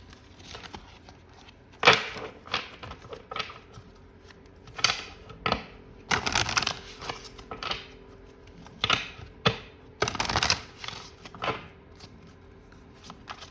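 A deck of tarot cards being shuffled and handled by hand: irregular snaps and rustles, with two longer riffling runs about six and ten seconds in.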